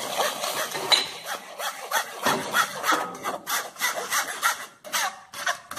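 Plastic spoon scraping boiled pitanga pulp against a mesh sieve in repeated short strokes, about three a second, pressing the pulp through and holding back the skins.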